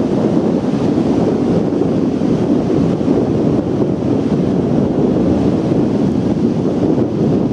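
Steady wind blowing on the microphone over the continuous rush of surf breaking on a sandy beach.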